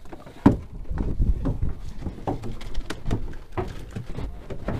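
A freshly landed fish thrashing in a landing net against the boat's deck and gunwale, making irregular knocks and taps about three a second.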